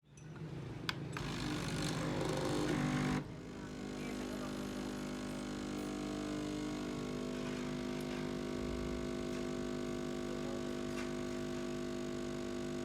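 A 19-bar espresso machine's pump running with a steady buzzing hum. It is louder and noisier for about the first three seconds, then settles to an even drone.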